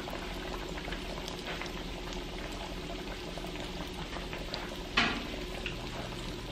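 Breaded cod fillets frying in hot oil in a pan: a steady bubbling sizzle with fine crackles, and one louder pop about five seconds in.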